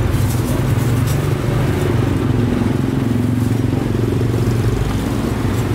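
A motor vehicle engine running close by, a steady low hum, with street noise around it.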